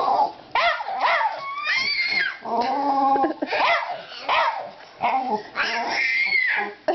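A dog whining and yipping in a string of short calls that glide up and down in pitch, trading back and forth with a baby's squeals and babble.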